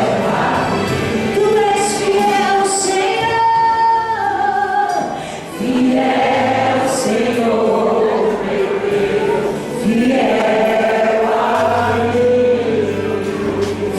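Church choir singing a gospel hymn with long held notes, breaking briefly between phrases about five and a half and nine and a half seconds in.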